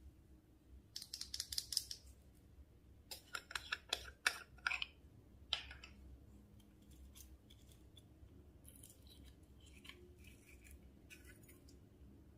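Slime being handled and mixed, giving several short bursts of crisp crackling and popping clicks, the loudest a little past the middle.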